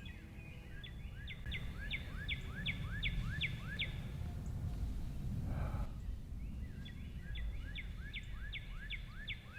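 A songbird singing two runs of quick, repeated slurred notes, about three a second, over a steady low rumble.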